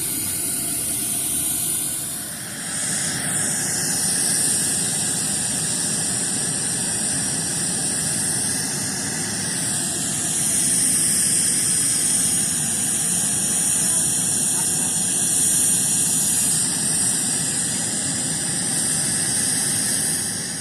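Loud, steady hissing noise with a shifting, swirling high band and a faint falling sweep about three seconds in, played through a line-array sound system, typical of a whoosh or jet-noise test effect.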